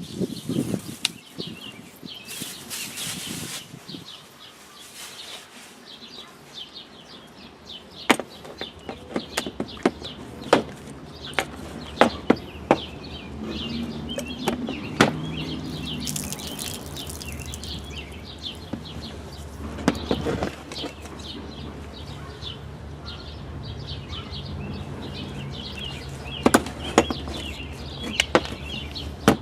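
Scattered sharp clicks and taps of garden hose parts being handled, with birds chirping throughout. A low steady hum comes in around the middle, and there are two brief hisses.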